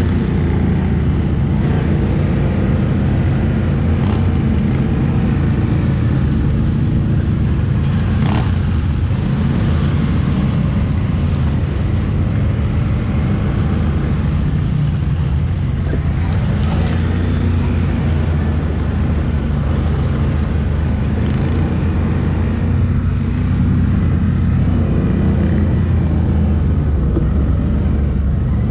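ATV engine running as the quad rides along a dirt trail, a steady low drone heard from on board, its note rising and falling a little as the throttle changes.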